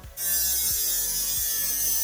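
Old hard drive's spindle motor spinning a sandpaper disc on its platter, with something held against it: a steady high grinding hiss that drops out briefly right at the start.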